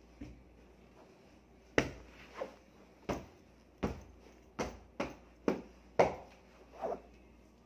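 A pillow being beaten and fluffed by hand: a run of about nine soft slaps and thumps, one every half to three-quarters of a second.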